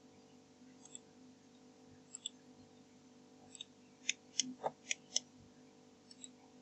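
Computer mouse clicking: a few single clicks, then a quick run of about five in the middle, over a faint steady hum.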